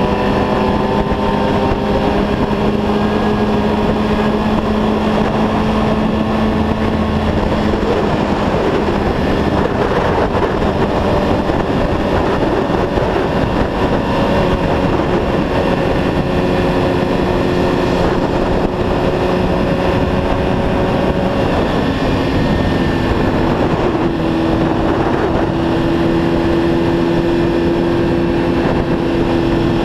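Sport motorcycle engine running at a steady cruise over road and wind noise. Its note eases slightly lower over the first few seconds and steps up in pitch about three quarters of the way through.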